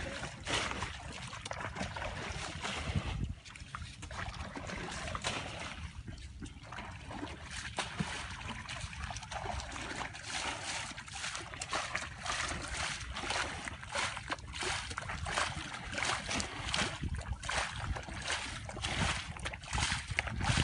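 Muddy water splashing and sloshing as it is scooped and thrown out of a shallow pool with a plastic container and by hand, in quick repeated splashes that come about twice a second in the second half.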